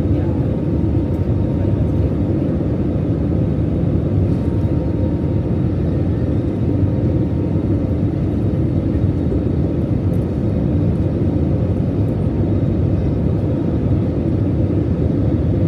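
Steady low rumble of jet engines and rushing air inside an airliner's cabin in flight.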